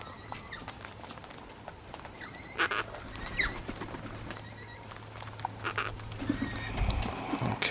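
Gang-gang cockatoos feeding at a seed table: scattered clicks and knocks as beaks and feet work the seed, with a few faint, soft short calls.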